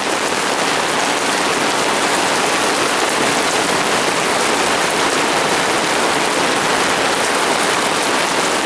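Heavy rain falling steadily in a summer downpour: a dense, even hiss of rain on the yard.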